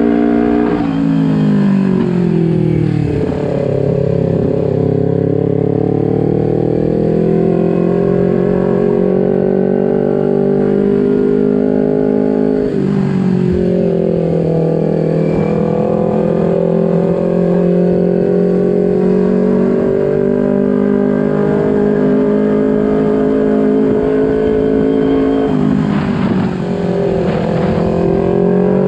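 Kawasaki Ninja 250 FI parallel-twin engine running under way through its R9 aftermarket exhaust. Its pitch falls over the first few seconds as the bike eases off, then holds fairly steady, with a gear change about halfway through and another near the end.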